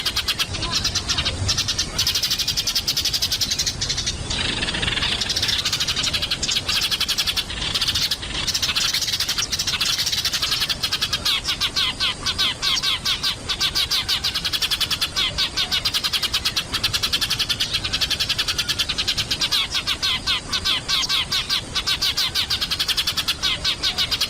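Sparrows chirping rapidly and continuously, many short calls a second without a break.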